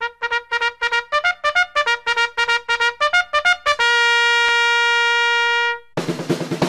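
Intro music: a run of quick, short notes, about five a second, leads into one long held note. About six seconds in, a fuller tune with drums starts.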